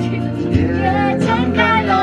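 Karaoke singing: a voice sings a Chinese pop song through a handheld microphone over a backing track, the sung notes held and wavering.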